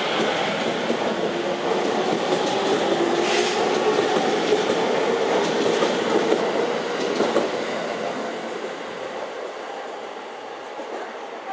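JR Sobu Line local electric commuter train pulling out and passing close by: wheels rumbling over the rail joints under a motor whine that climbs in pitch as it gathers speed. It fades away after the last car goes past.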